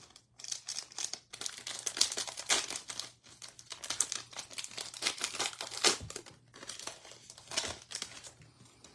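Foil wrapper of a Panini Contenders football card pack being torn open and crinkled by hand: a dense run of crackling and rustling with sharp snaps, easing off near the end as the cards come out.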